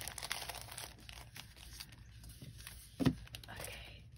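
Clear plastic sleeve crinkling and rustling as a sticker sheet is pulled out of it, with a single soft knock about three seconds in as the sheet is set down on the table.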